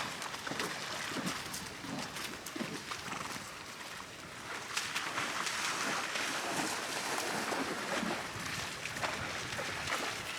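New Forest ponies wading and splashing in shallow lake water: an irregular wash of splashes and sloshing, with a few short animal calls mixed in.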